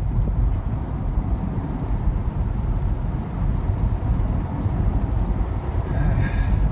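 Steady low road and engine rumble inside the cabin of a Jeep Grand Cherokee cruising at about 30 mph.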